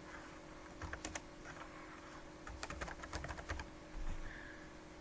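Typing on a computer keyboard: a couple of key clicks about a second in, then a quick run of clicks in the middle, over a faint steady hum.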